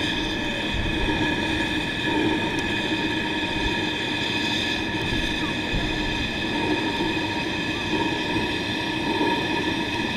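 7¼-inch gauge miniature live-steam locomotive running along the track, with a steady high-pitched squeal held over the running noise.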